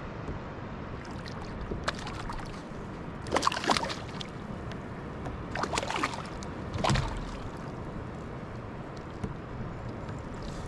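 Water sloshing against a kayak hull, broken by a few brief splashes about three and a half, six and seven seconds in.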